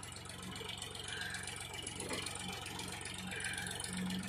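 Tractor diesel engine running steadily at low speed while it pulls a potato planter across the field.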